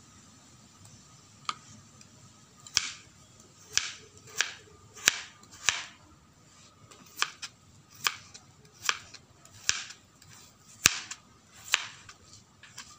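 Kitchen knife chopping banana stem into small cubes, the blade knocking down through the crisp stem onto a plastic cutting board about a dozen times at an uneven pace.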